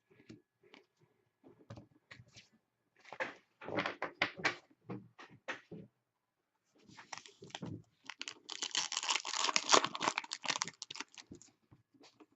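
Hockey trading cards and their foil pack wrapper being handled: brief scrapes and clicks as cards are slid and flipped, then a denser stretch of rustling and crinkling about seven to eleven seconds in.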